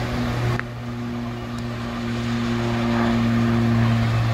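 DB Class V65 diesel locomotive's twelve-cylinder engine running at a steady, unchanging pitch. It dips slightly about half a second in, then grows gradually louder.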